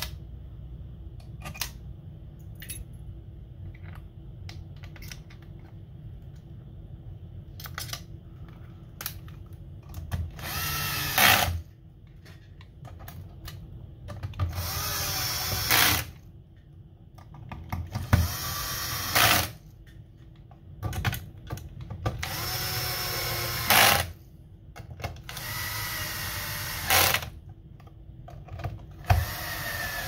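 Cordless power driver running in about six short bursts, driving the long screws back into the Xbox Series X's metal chassis. Its whine rises as it spins up, and each run ends in a brief louder spike. Before the first run, about a third of the way in, there are only light clicks of screws and parts being handled.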